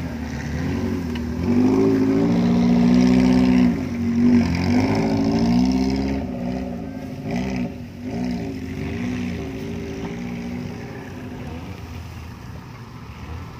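Small off-road 4x4's engine revving under load as it crawls through thick scrub. It runs loudest and highest a couple of seconds in, then rises and falls in repeated shorter revs, and is quieter near the end.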